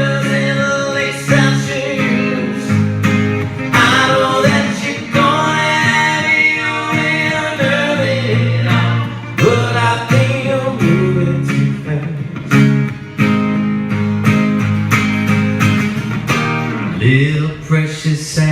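Live country music: a male voice singing over strummed acoustic guitar.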